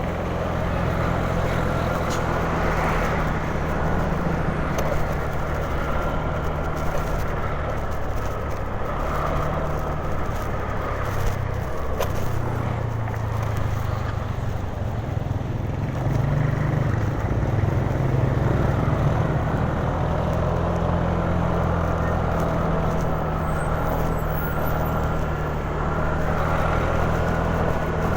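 Riding noise from a Honda Genio scooter in traffic: a steady low rumble of wind on the microphone with the engine and road underneath, shifting slightly in pitch as the speed changes.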